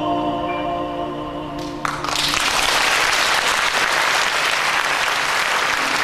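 A male voice ensemble holds its final chord, which cuts off a little under two seconds in; an audience then breaks into steady applause that continues to the end.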